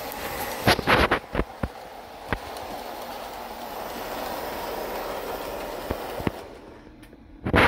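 Lionel O gauge Fairbanks Morse Trainmaster diesel, a no-frills two-motor engine, running steadily on tubular three-rail track with its cars, its wheels clicking over the track joints. The running noise fades near the end, followed by a couple of loud scraping knocks.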